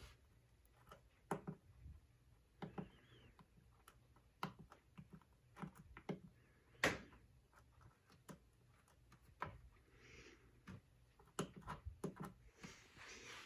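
Faint, irregular clicks from buttons being pressed on a small LED lamp remote control, about fifteen in all with the sharpest about seven seconds in.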